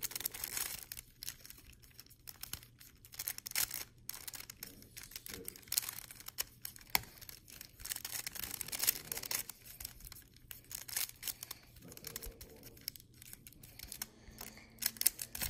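Plastic 3x3 speed cube being turned quickly in the hands: rapid runs of small clicks and clacks from the layers snapping round, with brief pauses between runs.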